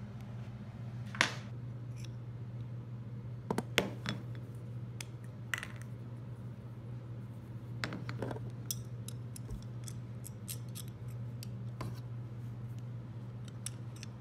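Small metal parts, bolts and the broken tripod handle's threaded studs, clicking and clinking as they are handled and set down on a workbench, with sharper clicks about a second in and around four seconds in and a run of small ticks later on. A steady low hum lies underneath.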